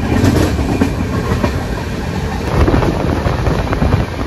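Passenger express train running at speed, heard from the coach doorway: a loud, steady rumble of the wheels on the track with a rapid, irregular clatter over the rail joints.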